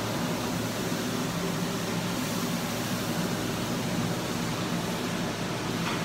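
Steady fan-like hum and hiss, an even rushing noise with a low hum underneath that holds level throughout.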